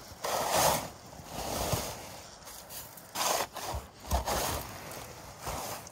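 Rough scraping and crunching in wet snow and ice, in about five irregular strokes of roughly half a second each.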